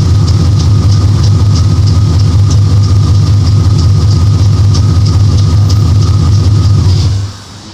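Car engine idling steadily with a loud, low rumble, which stops abruptly about seven seconds in.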